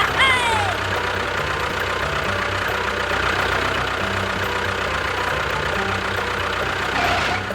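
An engine running steadily at idle with a low, even hum, overlaid by a few short falling squeaks at the very start.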